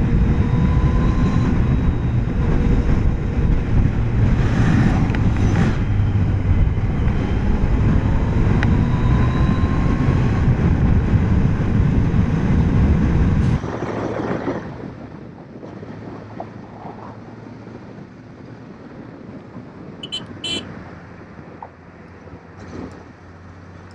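Motorcycle riding at highway speed: loud wind rush on the microphone over a steady engine drone. About halfway through it cuts to a quieter, steady motorcycle engine hum while following traffic.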